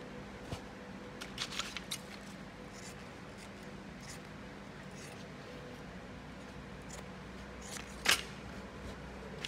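Scissors snipping a disposable surgical mask and its elastic ear loops: a quick run of snips about a second and a half in, a few faint clicks, and one loud, sharp snip about eight seconds in.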